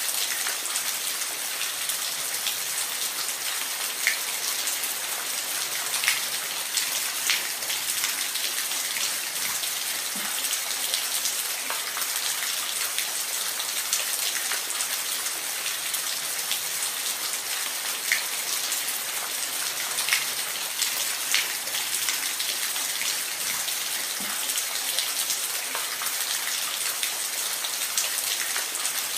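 Waterfall: a steady hiss of falling water, with scattered sharper splashes and drips standing out from time to time.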